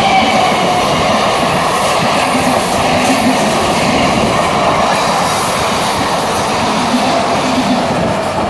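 EMU local electric train passing close by at speed: a steady rush and clatter of steel wheels on the rails. A faint high whine fades in the first second, and the sound begins to drop off at the very end as the last coach goes by.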